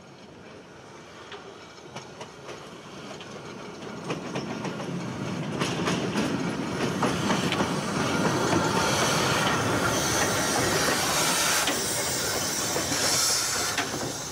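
Steam locomotive 434.2186 rolling slowly past, growing louder over the first several seconds as it comes near. Its wheels click over the rail joints, with a strong hiss of steam while it passes close by.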